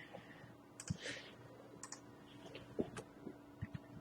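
Faint scattered clicks and light taps, with a brief soft rustle about a second in, as of small objects being handled on a desk.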